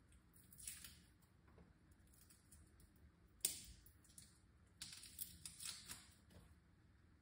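Faint, scattered light clicks and crackles, with one sharper tick about three and a half seconds in and a small cluster of ticks a little later.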